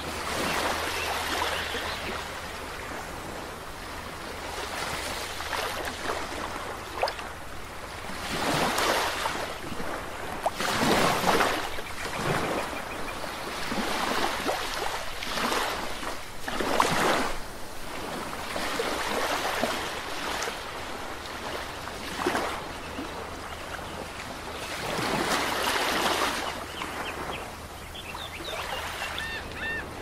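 Small waves breaking and washing up a sandy beach, each wash swelling and fading every few seconds. A few faint bird chirps come near the end.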